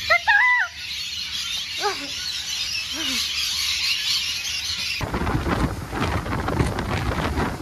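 A large flock of parrots screeching in the trees: a dense, high, continuous chatter with a few louder arching squawks in the first three seconds. About five seconds in it cuts abruptly to wind on the microphone and the rush of a boat's wake.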